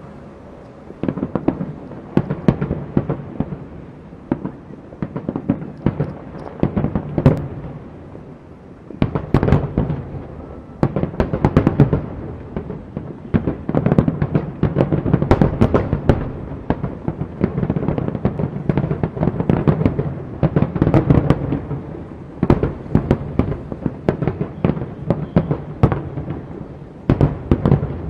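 Aerial fireworks display: dense volleys of booms and crackling pops, overlapping in rapid clusters with short lulls between them.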